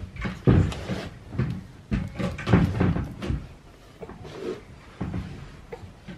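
Plastic rings of a toy stacking pyramid knocking and clattering as a baby handles them: a run of hollow knocks, most of them in the first three seconds or so.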